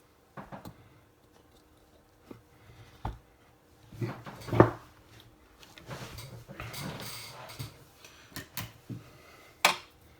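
Bench handling noises during through-hole PCB soldering: scattered clicks and knocks as the board and tools are moved and set down, the loudest about halfway through and near the end, with a brief rustle in between.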